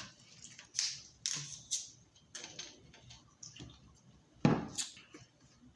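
Drinking a cup of ice water: several scattered clinks and knocks of ice against the cup, with a louder knock about four and a half seconds in.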